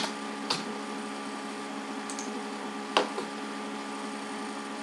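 A handful of single computer keyboard clicks, spaced irregularly, over a steady electrical mains hum.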